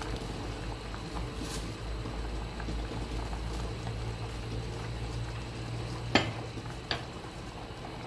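Thick porridge bubbling steadily at the boil in a stainless steel saucepan while a metal ladle stirs it. Two sharp taps of the ladle against the pan come about six and seven seconds in.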